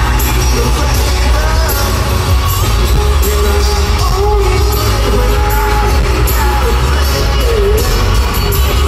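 Live concert music played loud through an arena sound system, with heavy bass and a sung melody of long held, sliding notes.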